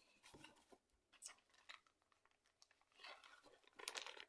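Near silence: room tone with a few faint scattered clicks and rustles, a little busier near the end.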